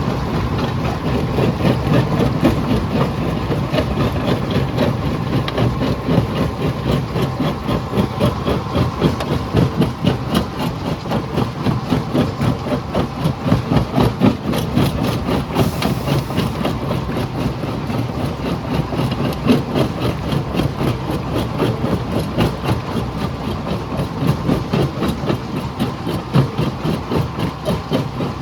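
Jaw crusher running and crushing rock: a steady heavy mechanical drone with dense, rapid knocking and rattling throughout.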